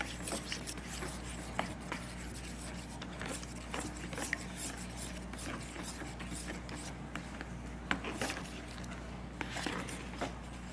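Spoon stirring glue and water in a plastic tub: faint scraping with scattered light clicks as it knocks against the tub's sides.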